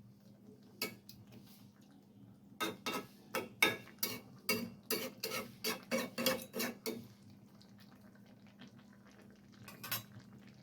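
Metal spoon clinking and scraping against a cooking pot of spinach and potato curry: one clink about a second in, a quick run of clinks from about three to seven seconds, then another couple near the end, over a faint steady hum.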